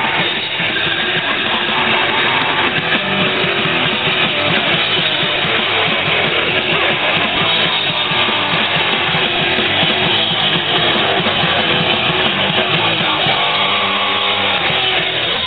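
Crust punk band playing live at full volume: distorted electric guitar, bass and drums with some vocals, heard through a camera's built-in microphone that badly distorts the sound.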